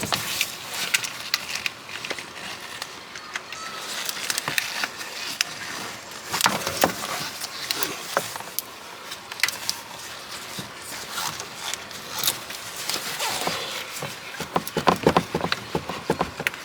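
Pliers working a spring hose clamp on a coolant hose: scattered metal clicks, scrapes and tool handling noise, with a denser run of clicks near the end.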